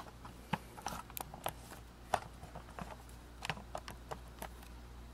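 Faint, irregular light clicks and taps of handling, about a dozen, over a low steady hum.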